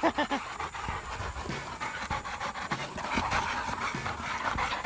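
Pit bulls panting, with a brief pitched dog vocal sound right at the start.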